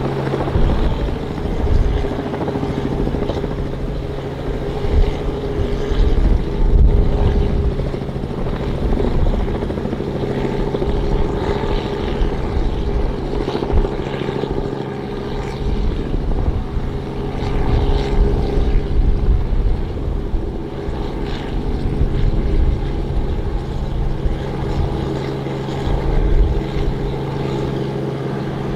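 Robinson R44 piston helicopter running steadily: a constant engine drone over an uneven low rotor rumble.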